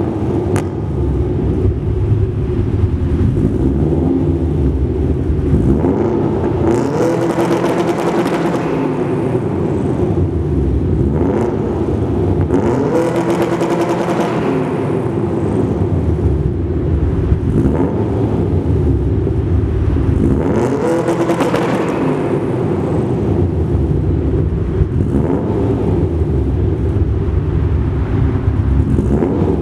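Car engine running at idle and revved three times, each rev rising and falling back over about two seconds.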